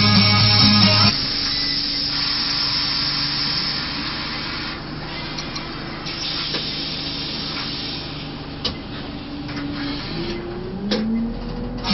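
2002 Scania OmniLink city bus heard from inside: the diesel engine hums steadily while the bus stands, then rises in pitch as it pulls away near the end, with a few light clicks. Radio music cuts off about a second in.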